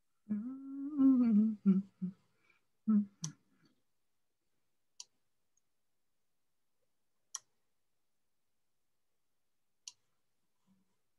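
A person humming a few short notes, then single sharp clicks about every two and a half seconds.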